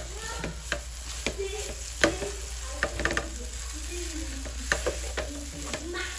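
Instant noodles and vegetables frying in a non-stick pan, stirred and tossed with a spatula: a steady sizzle with frequent clicks and scrapes of the spatula against the pan.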